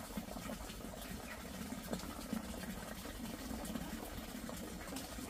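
Faint, steady water sound, a low trickling without a break.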